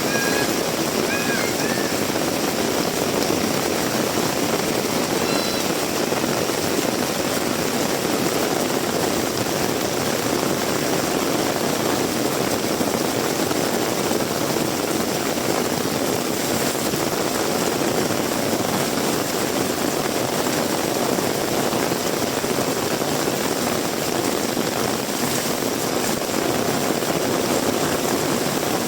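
Heavy rain falling steadily, an even rushing hiss with no break.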